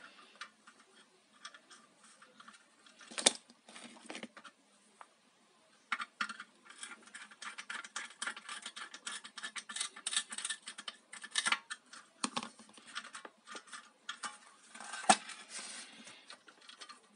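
Small handling noises of wiring work on an electric hob's terminal block: scratching and a rapid patter of little clicks as power-cord wires are fitted and the metal-and-plastic parts are moved, busier after the first few seconds. A sharper knock comes near the end as the hob body is handled.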